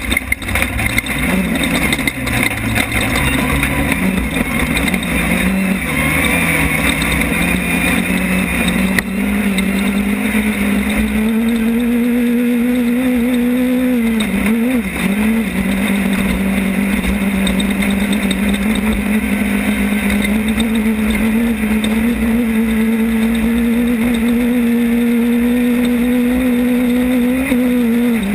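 Class 10 desert race car's engine heard from the onboard camera, revving up and down for the first several seconds, then held at a steady high pitch with a brief dip about halfway, over a constant rushing noise.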